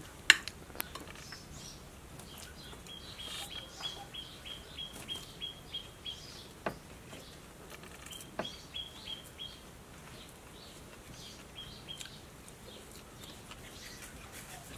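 A bird calling in runs of short, quick, high notes at one pitch, several a second, repeated three times. A metal spoon clinks against a plate a few times, the sharpest just after the start.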